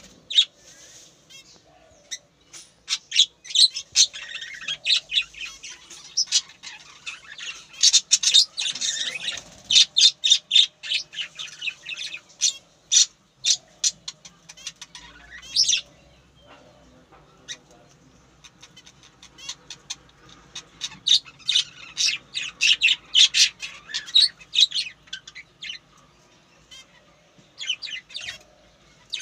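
Birds calling: rapid runs of short, high chirps and squawks, bunched into busy clusters with quieter gaps between them.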